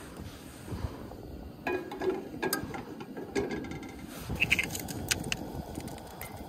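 Scattered clinks and knocks as a small metal frying pan is handled and set down on a camp stove's wire grate, with a short ringing clink a little past the middle, and a plastic oil jug being picked up.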